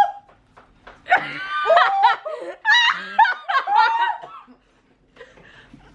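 Laughter in several high-pitched bursts that go on for about three seconds, then stop.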